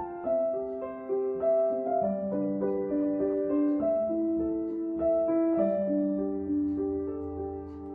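Background music: a slow, gentle piano melody, with notes played one after another over held lower notes.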